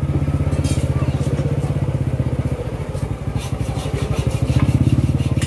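Small motorcycle engine running steadily with a fast, even beat, with a few light clicks above it.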